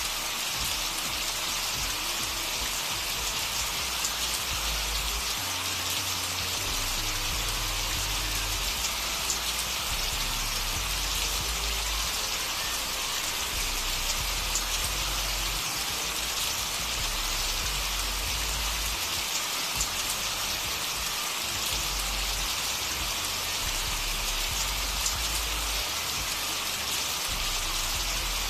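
Steady rain sound, an even hiss of drops, with a low hum underneath that shifts in pitch every second or two.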